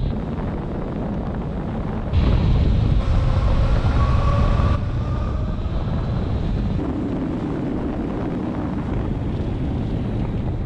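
Wind rushing over the camera on a moving Zero DS electric motorcycle, louder for a few seconds from about two seconds in. A faint whine from the electric drive rises in pitch under the wind over the same stretch.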